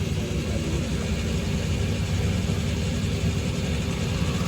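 JCB 3DX backhoe loader's diesel engine running steadily, its sound low-pitched and even.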